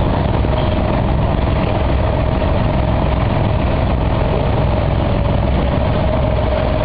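Water taxi's inboard diesel engine running steadily, a constant low rumble with a steady hum on top.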